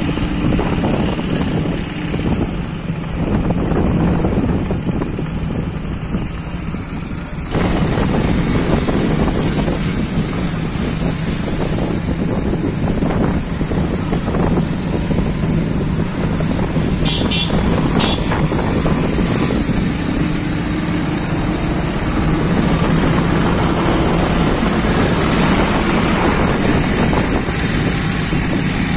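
Vehicle engine running steadily with wind noise on the microphone. The sound becomes abruptly louder about a quarter of the way in.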